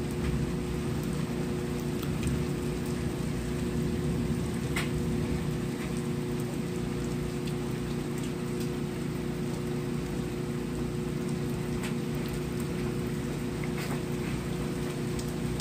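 Steady rain falling, with single drops ticking sharply now and then, over a constant low hum.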